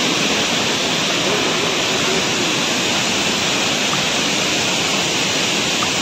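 Waterfall: a loud, steady rush of falling water with no break.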